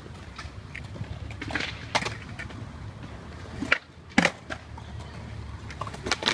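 Skateboard wheels rolling on concrete with a steady low rumble, broken by several sharp clacks of boards hitting the ground. The loudest clacks come about four seconds in.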